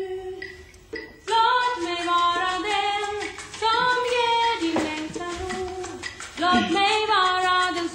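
A woman singing a slow melody in three phrases with long held notes, the first beginning about a second in.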